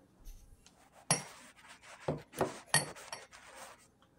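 Several sharp clinks and knocks of hard kitchen items being handled, starting about a second in, two of them with a short high ring.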